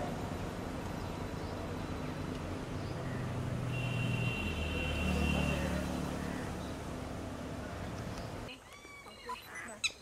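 A low steady hum, like a running engine, under outdoor background noise, with a brief high tone about four seconds in. Near the end it cuts to quieter surroundings with a few short bird calls.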